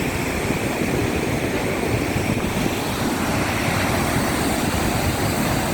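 Steady rush of a waterfall, falling water pouring continuously.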